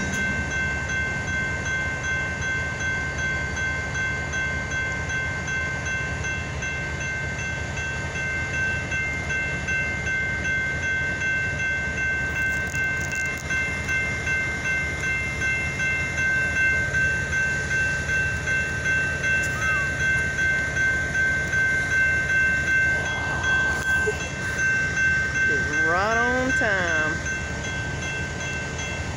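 Freight train boxcars rolling past, wheels rumbling with a regular rhythmic beat over the rail joints, under a steady high-pitched ringing tone. A short gliding vocal sound comes near the end.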